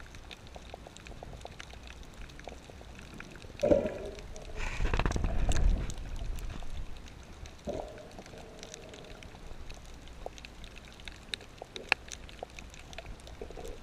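Underwater reef sound: a faint, steady crackle of scattered clicks. A short low sound comes just before four seconds in and again near eight seconds, and a louder rush of water noise lasts about a second around five seconds in.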